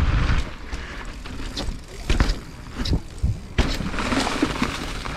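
Nukeproof Scout hardtail mountain bike rolling over a dirt path and onto grass: wind buffeting the helmet-mounted microphone at first, then tyre noise with several sharp clicks and knocks from the bike over bumps.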